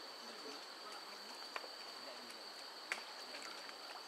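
Faint, steady high-pitched insect drone over the low rush of a river, with two sharp clicks, about one and a half and three seconds in.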